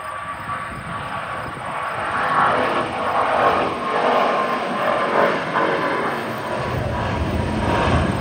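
Jet engines of a twin-engine widebody airliner climbing out after takeoff: a steady rushing noise that grows louder over the first couple of seconds, with a deeper rumble joining near the end.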